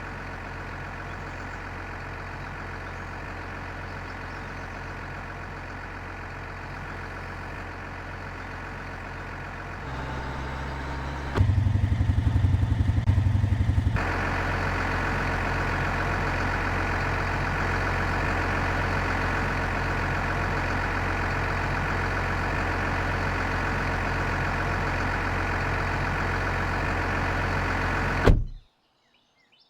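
An engine running steadily. About ten seconds in it steps up, runs loudest for a few seconds, then settles at a steady, higher pitch and level. It cuts off abruptly near the end.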